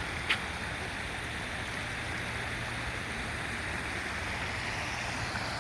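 Small creek water running steadily over rocks, a constant rushing hiss. A single short high tick comes about a third of a second in.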